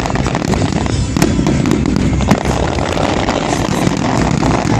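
Aerial fireworks going off in a dense stream of crackles and pops over a deep rumble, with a couple of sharper bangs standing out.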